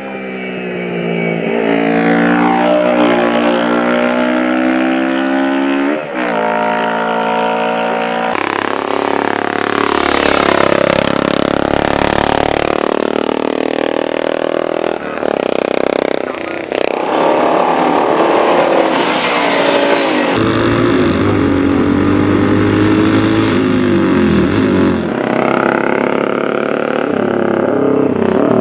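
Racing motorcycle engines revving hard as the bikes pass, their pitch climbing and dropping through gear changes. The sound jumps abruptly several times, at the film's cuts.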